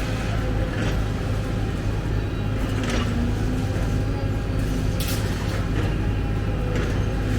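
Heavy diesel machinery engine running steadily, with short hissing bursts about every two seconds.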